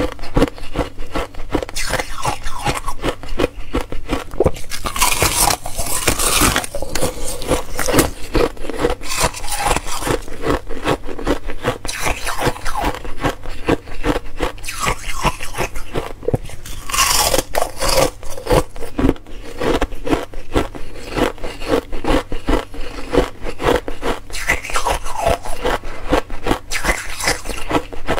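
Thin pale-green ice being bitten and chewed close to a clip-on microphone: a dense, continuous run of sharp crunches and crackles, with louder spells of crunching about five and seventeen seconds in.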